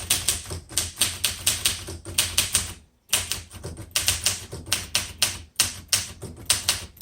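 1966 Olympia SM9 manual typewriter being typed on in capitals: a quick, uneven run of sharp keystrokes, about four or five a second, with the typebars striking the platen and a brief pause about three seconds in.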